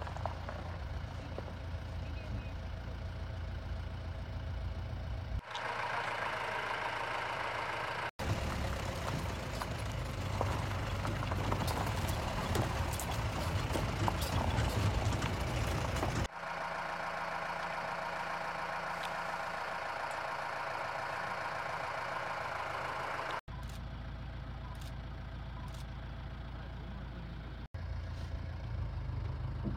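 Safari jeep's engine running, in several short clips that cut abruptly from one to the next. In two of them, about five seconds in and again past the middle, the engine is absent and a steady higher-pitched hum takes its place.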